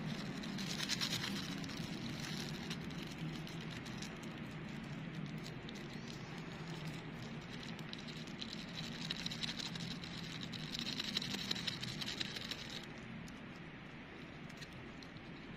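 Foil wrapper crinkling as it is handled and unwrapped by hand, in two spells: briefly about a second in, then again for several seconds from about nine seconds in.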